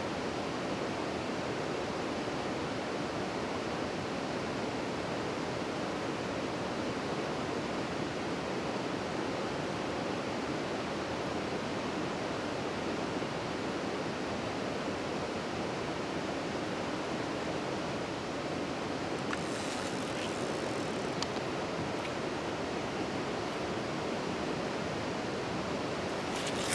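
Steady rushing of flowing river water, even and unbroken, with a couple of faint ticks about three-quarters of the way through.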